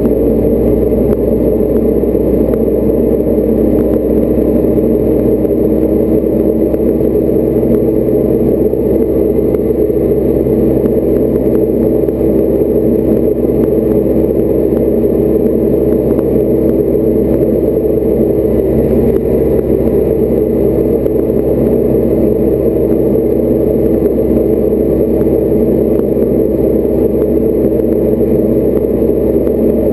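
Diamond DA40 light aircraft's piston engine and propeller running as a steady drone, heard from inside the cockpit, on final approach to the runway.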